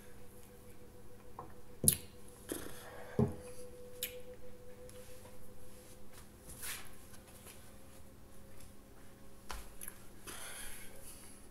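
A small glass shot glass set down on a coaster on a wooden table: two sharp knocks about two and three seconds in, then a few faint handling ticks over a quiet room hum.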